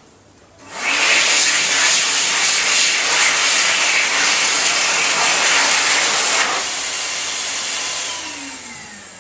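A loud, steady rush of air from a motor-driven appliance starts about a second in. It cuts down sharply past the middle of the clip, then a falling whine follows as the motor winds down and fades.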